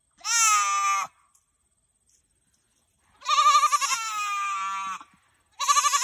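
Nigerian Dwarf goat bleating in a weird-sounding, high-pitched voice: a short call near the start, a long wavering call about three seconds in, and another beginning just before the end.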